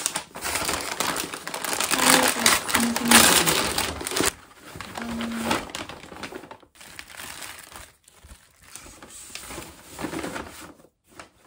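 Crinkling and rustling of packaging being handled, loud for about the first four seconds, then quieter and patchy.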